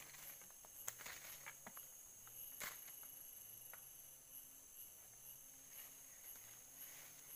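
Forest insects chirring steadily, with a high pulsing trill about twice a second. A couple of sharp clicks, about a second in and again at two and a half seconds, stand out above it.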